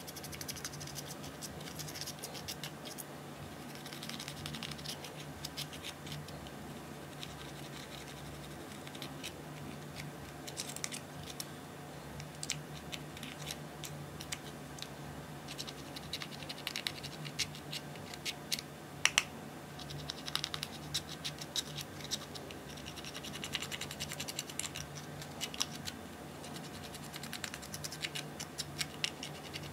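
A thin metal pick scraping pressed eyeshadow out of the pans of a plastic palette, crumbling the powder: dry scratching in irregular spells, with many small sharp clicks.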